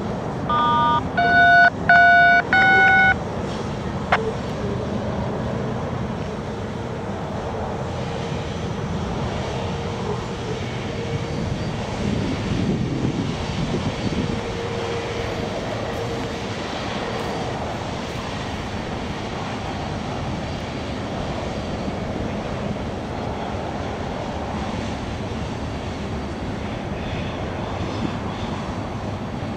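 Steady rumble of a heavy loaded coal train's hopper cars rolling along the track. Four short electronic beeps sound in the first three seconds.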